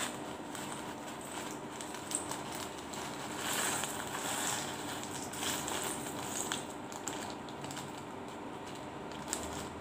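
A plastic bag rustling and crinkling as small fried wonton crisps are shaken out of it onto a bowl of rice porridge, with a few light clicks.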